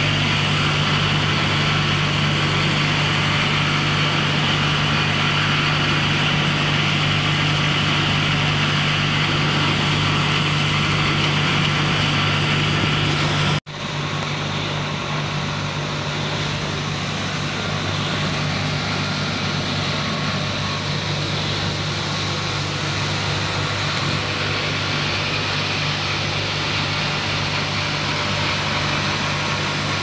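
Rotary drum charcoal carbonization furnace running: a steady machine hum with a rushing noise over it. About halfway through the sound cuts out for an instant, then the hum carries on with less hiss.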